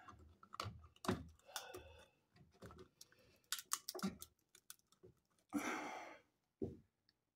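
Handling noise from a burnt-out wall receptacle being pulled out of its electrical box: scattered light clicks and knocks as the receptacle and its stiff, charred wires are worked loose, then a short scraping rub a little before the sound stops.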